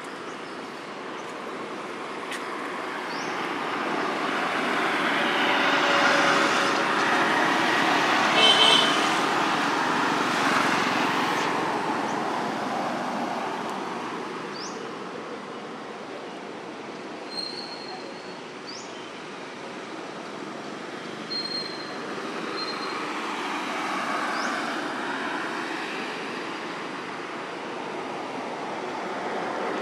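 Road traffic passing: the noise of vehicles swells and fades twice, with a short high toot at the height of the first pass and a few faint short chirps.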